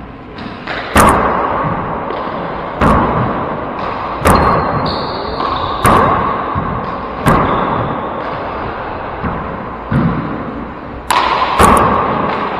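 Four-wall handball rally: the rubber ball smacks sharply off gloved hands and the court walls about eight times, roughly every second and a half, each smack booming in the enclosed court's echo.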